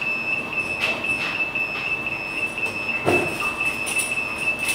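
Brewery timer alarm sounding one steady, high-pitched tone, signalling that the 45-minute mash is done. A pump runs underneath, and there is a thump about three seconds in.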